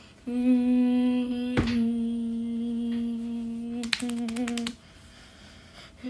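A person humming one long, steady note for about four and a half seconds, with a sharp knock partway through and a quick run of clicks near the end of the note.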